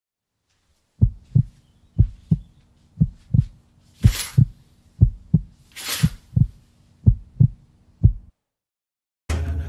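Heartbeat sound effect: a slow lub-dub double thump about once a second over a low steady hum, with two airy whooshes about four and six seconds in. The beats stop about eight seconds in, and music starts with a hit just before the end.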